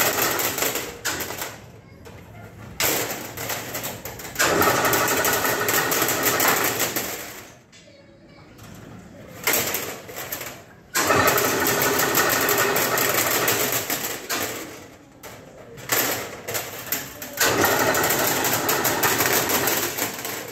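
Chain-link mesh weaving machine running, its noise coming in loud stretches of a few seconds with short lulls between, several times over, as each wire is wound into the mesh.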